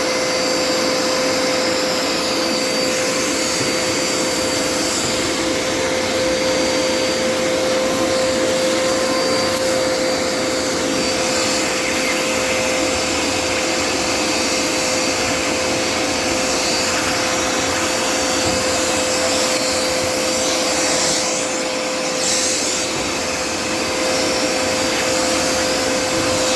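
Dirt Devil Endura Reach vacuum cleaner running steadily, with a constant motor whine over the rush of air. The rushing sound changes briefly a little past twenty seconds in.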